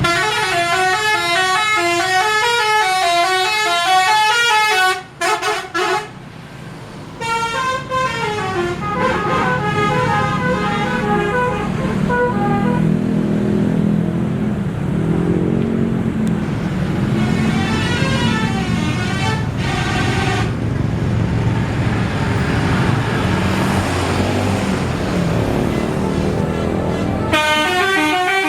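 Indonesian tour buses' 'telolet' musical air horns playing warbling multi-note melodies, in four bursts with pauses between them. Bus engine and traffic noise fill the gaps.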